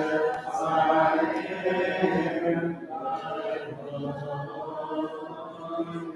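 Church congregation singing a hymn a cappella, many voices together on held notes.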